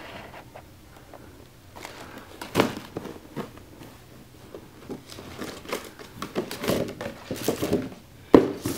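A shoebox being handled as its translucent plastic lid is lifted off and the tissue paper inside rustles. It is a run of scattered rustles and light knocks, with a sharper knock near the end.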